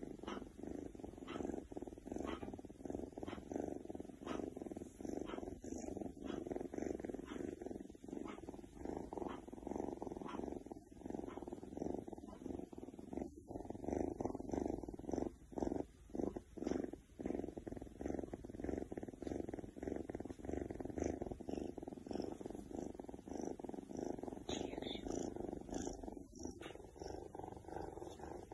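Oriental Shorthair cat purring: a steady run of rapid pulses, with a few short breaks about halfway through.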